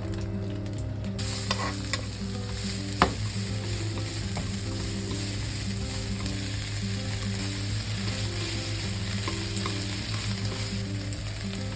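Food frying in a hot oiled pan, the sizzle starting suddenly about a second in and then running steadily while it is stir-fried. A few sharp clacks of a utensil against the pan come through, the loudest about three seconds in.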